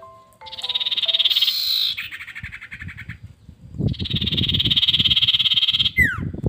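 Caged common iora (sirtu) singing: a few short whistled notes, then two long, fast, buzzy trills of about two seconds each, and a quick downward-slurred whistle near the end.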